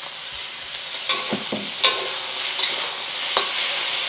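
Green beans and ground pork sizzling in a steel wok while being stir-fried. A metal spatula clanks and scrapes against the wok three or four times.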